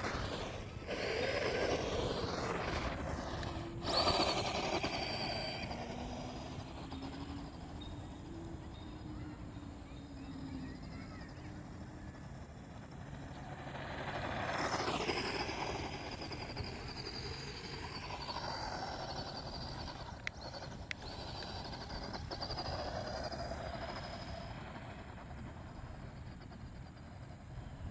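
A motor running steadily, swelling and fading, loudest about four seconds in and again around fifteen seconds. It is making an odd noise, though it is still running well.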